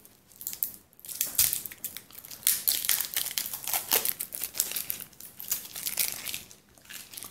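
Thin clear plastic wrapping crinkling in the hands as it is pulled off a phone charger: a run of irregular crackles that dies down near the end.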